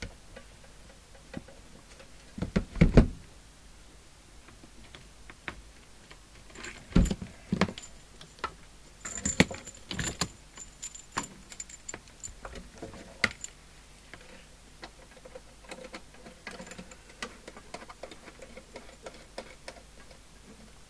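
Irregular clicks, knocks and a metallic jingle as a power plug and lead are handled and fitted on a workbench. The loudest clatter comes about three seconds in, and the jingling is brightest around nine to ten seconds.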